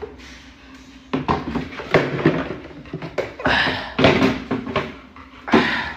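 A hollow red plastic stool knocking and clattering as a dog carries it in its mouth and a hand takes it from the dog: a run of irregular knocks starting about a second in.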